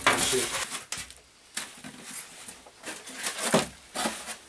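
Foam board sheets being handled and fitted together on a wooden workbench: scraping, rubbing and light knocks in about four short bursts.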